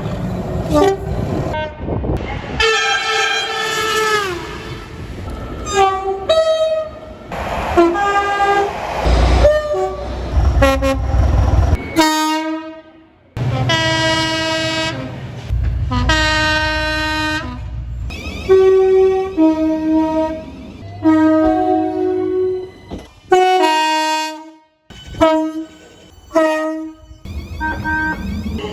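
A run of UK train horn recordings cut one after another: many separate horn blasts, several of them two-tone, with the low rumble of the trains under some of them. One horn about three seconds in drops in pitch, and the clips break off abruptly between blasts.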